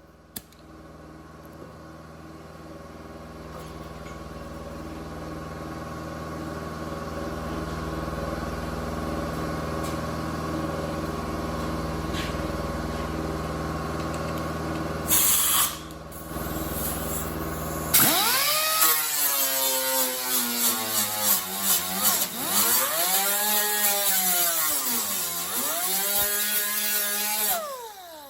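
A power tool working sheet metal: its pitch sags and climbs back again and again as the tool is loaded and eased off. Before it there is a steady machine hum that slowly grows louder, broken by a short loud noise.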